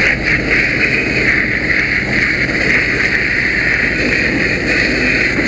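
Fire hose nozzle flowing a steady stream of water onto a burning excavator, a loud, even rushing hiss of the stream and the steam it raises off the hot machine. A low steady rumble runs underneath.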